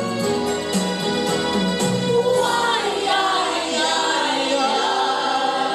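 An amateur vocal group singing a slow ballad over a backing track. About two seconds in, the voices hold a long, wavering note together.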